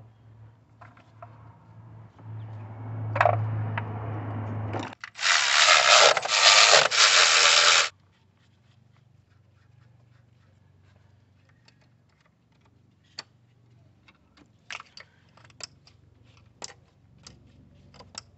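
Clicks and knocks of ignition coils and tools being handled and fitted back into an engine's valve cover. About five seconds in, a loud rushing hiss lasts some three seconds and stops abruptly.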